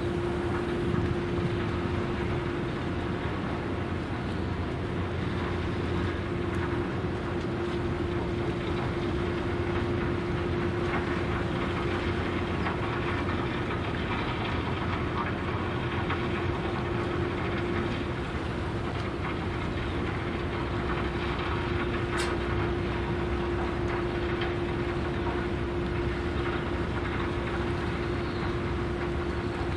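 Steady drone of running machinery: a constant hum tone over a broad, even rumble that does not change. A single short click about two-thirds of the way through.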